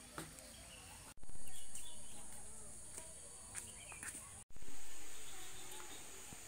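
Outdoor rural ambience: a steady high-pitched insect drone with scattered short bird chirps. The sound cuts out abruptly twice and comes back louder each time, then slowly settles.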